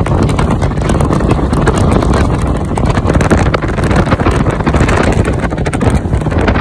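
Motorboat under way at speed: the engine runs steadily beneath heavy wind buffeting on the microphone and the rush of water along the hull.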